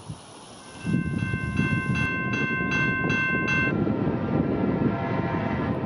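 Diesel locomotive air horn sounding a loud chord over the rumble of a moving train, then giving way to a fainter, lower-pitched horn chord near the end.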